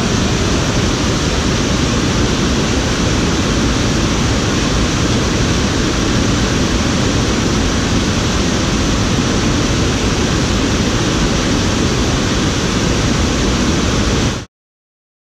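Upper tier of a small two-tiered stream cascade: a steady rush of water pouring over rocks into a pool. The sound cuts off suddenly about a second before the end.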